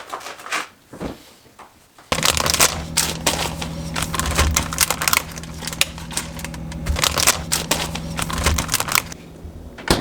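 A few soft clicks, then a small electric kitchen appliance switched on for about seven seconds: a steady motor hum with dense rapid clattering over it, cut off abruptly.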